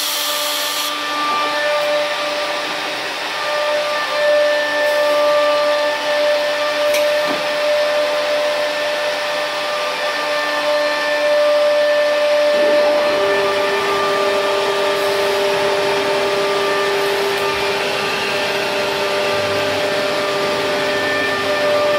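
Nesting CNC router running, with its suction and dust extraction: a steady whir of fans and motors carrying several steady whining tones. About halfway through, a lower tone and a deeper hum join in and hold.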